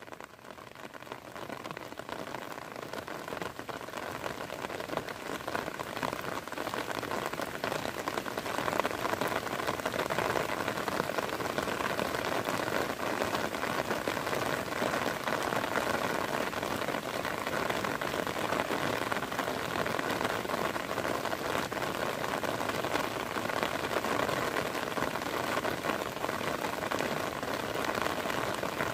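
Heavy rain falling steadily, a dense even patter. It swells in over the first several seconds, then holds steady.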